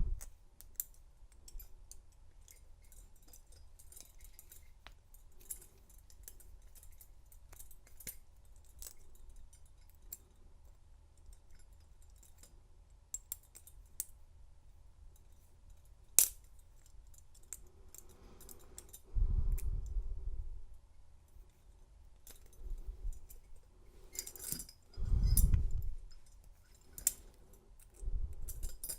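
Small metallic clicks and scrapes of a pick tool being worked into a handcuff's lock, with one sharper click about halfway through and a few low thumps of the cuffs being handled in the second half.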